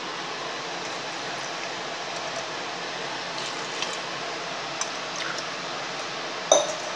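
Water poured from a steel tumbler into a pressure cooker of rice, over a steady hiss, with a few light ticks and one sharp metal clink near the end.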